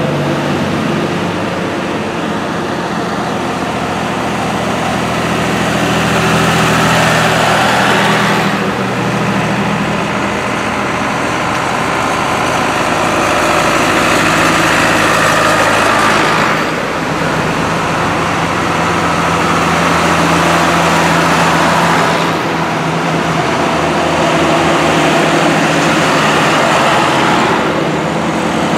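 Diesel farm tractors driving past one after another, their engines running steadily. Each grows louder as it nears and falls away as it passes.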